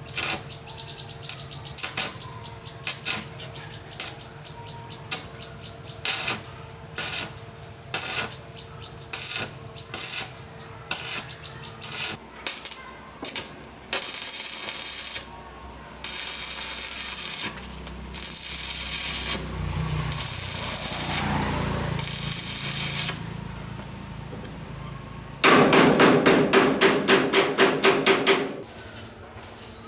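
Workshop tool sounds: a series of sharp hammer-like strikes roughly one a second, then several separate bursts of hiss about a second long each, then a quick loud run of strikes near the end.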